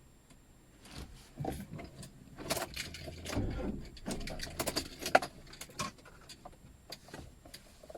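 Car keys jangling, with irregular small knocks and rattles of handling.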